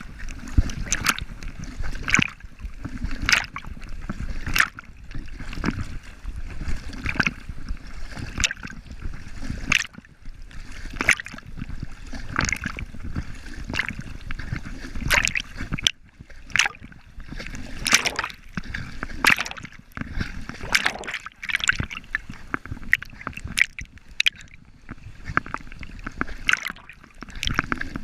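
A dog splashing in water: irregular sloshes and splashes, with a steady low rumble underneath.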